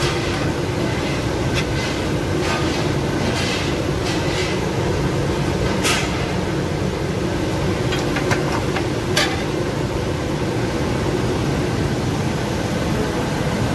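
Steady loud drone of commercial kitchen exhaust fans and equipment, with a few short clicks about six and nine seconds in.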